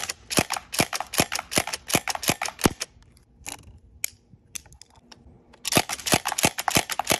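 FN Herstal CO2 airsoft shotgun firing on three-round burst: a rapid string of sharp pops for about three seconds. Then a pause with a few softer clicks, and another rapid string of pops starts near the end.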